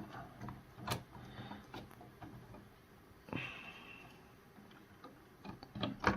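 Plastic LEGO pieces clicking and knocking as a roof section is handled and pried at, a few sharp clicks with smaller ticks between, the loudest near the end.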